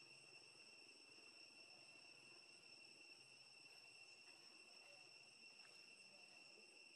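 Near silence with a faint, steady high-pitched insect drone, like crickets.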